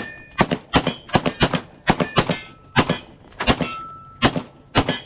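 Rapid pistol fire from Staccato pistols: about fifteen shots in quick strings, often in close pairs. Brief ringing tones follow several of the shots.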